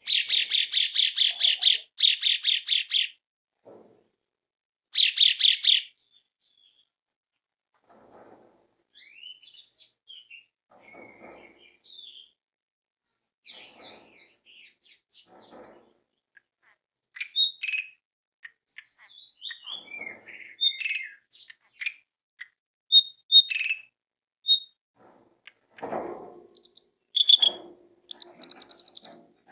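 Asian pied starling (jalak suren) calling. A loud, fast rattling series of about six pulses a second comes in the first few seconds, with a shorter burst about five seconds in. After that comes a varied run of quieter whistles, squeaks and short rising and falling notes.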